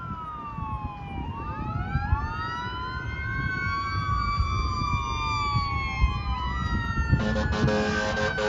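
Fire engine siren wailing, its pitch sweeping up and down. About seven seconds in, the truck's air horn joins with a steady low blast.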